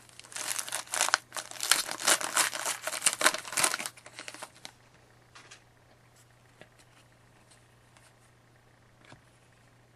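Plastic trading-card pack wrapper being crinkled and torn open for about four seconds, followed by a few faint ticks of cards being handled.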